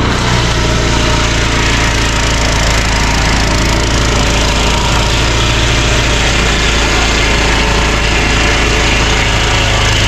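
Engine-driven swingblade circular sawmill cutting through a log: a steady, loud sawing noise over the running engine.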